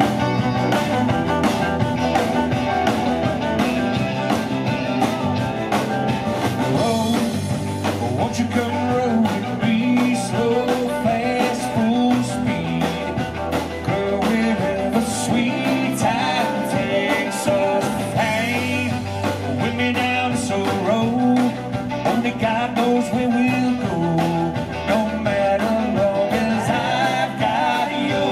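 Live country band playing through a PA: drums, electric and acoustic guitars, fiddle and keyboard, with lead singing.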